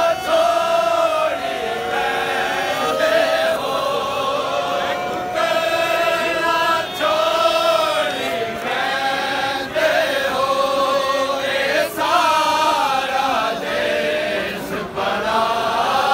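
Men's voices chanting a noha, a Shia mourning lament, in long sung lines with held, wavering notes.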